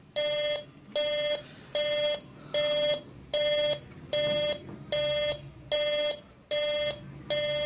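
RMG wireless water tank level indicator's buzzer sounding its tank-full alarm: a loud, fast, evenly repeated beep, about ten beeps of half a second each, a little more than one a second, the signal that the tank has reached 100%.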